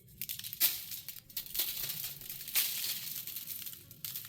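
Aluminium foil crinkling and rustling in irregular bursts with a few sharp crackles, as chicken is handled and seasoned in it for a foil-pack dinner.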